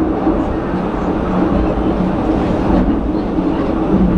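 Penang Hill Railway funicular car running on its track, heard from inside the car: a steady low hum over an even rumble of wheels on rail.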